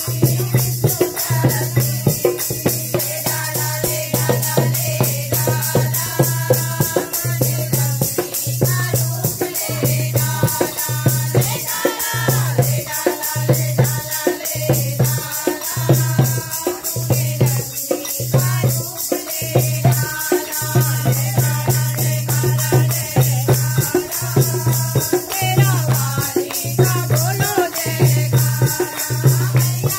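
Group of women singing a Hindu devotional bhajan in chorus, with hand clapping and a fast, steady rattling percussion. A low note throbs in time, about once a second.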